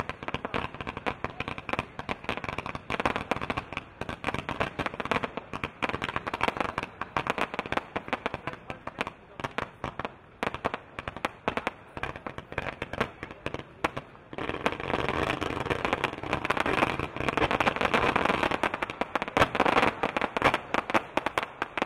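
Fireworks crackling and popping in a rapid, dense run of sharp reports. About fourteen seconds in, it thickens into a louder, steadier crackle.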